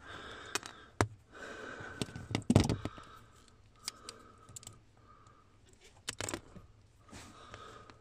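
Scattered sharp clicks and light scrapes of wire strippers and thin insulated wire being handled as the end of the wire is stripped.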